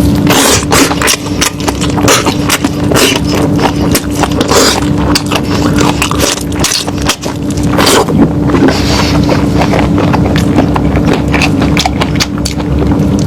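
Close-miked eating of lamb: loud chewing with a dense run of irregular wet clicks and lip smacks, over a steady low hum.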